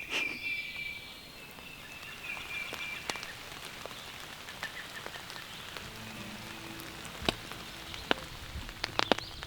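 Outdoor woodland ambience: a steady faint hiss with a high, thin call in the first few seconds, then scattered sharp ticks that come more often near the end.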